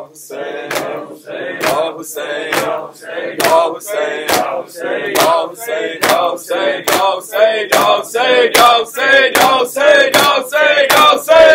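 Men chanting a lament refrain together, each beat marked by a sharp slap of palms striking chests (matam), about two slaps a second.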